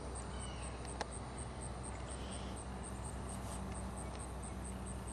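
Steady outdoor background with a constant low hum and a fast, even high-pitched chirping like insects, plus a single click about a second in.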